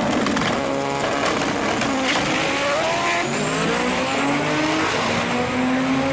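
Two drag cars launching and accelerating hard down the strip, led by a turbocharged all-wheel-drive Honda Civic revving to about 11,000 rpm. The engine pitch climbs, drops at each gear change and climbs again, with a quick run of crackles about a second in.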